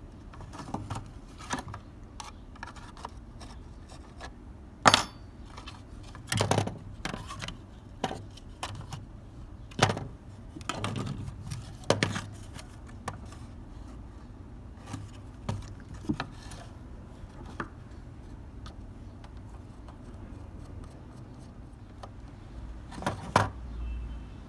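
Scattered clicks, taps and light scrapes of small metal parts and hand tools being handled during work on a die-cast toy car, the loudest a sharp knock about five seconds in.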